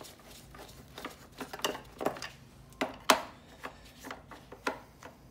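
Small Torx screwdriver working screws out of the plastic underside of a Shark Ion RV700 robot vacuum: a string of short, sharp clicks and taps at uneven intervals, the loudest about three seconds in.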